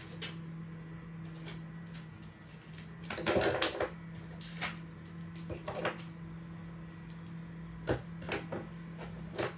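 Scissors cutting a folded sheet of A4 paper, with paper rustling: scattered snips and crinkles, a louder rustle about three seconds in, over a steady low hum.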